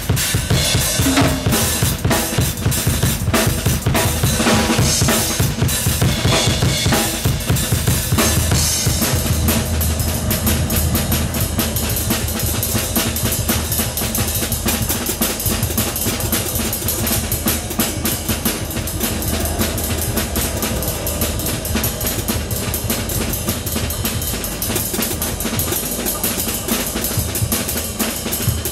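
Acoustic drum kit played in a free-form drum solo: a dense, fast run of strokes on the drums and cymbals.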